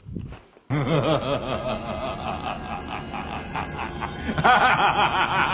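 A man laughing, a long run of quick 'ha' bursts that cuts in suddenly under a second in and grows louder near the end, from an edited-in film clip.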